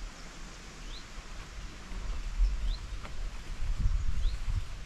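A small bird repeating a short, high, rising chirp about every second and a half. Low rumbles of wind on the microphone grow stronger in the second half.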